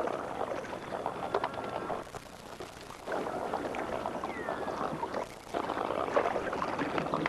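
Shallow water splashing and sloshing as wading birds feed in a drying pool, with one short bird call around the middle.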